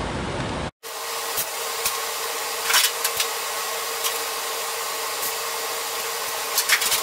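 Steady mechanical whir with a faint hum, marked by a few light clicks.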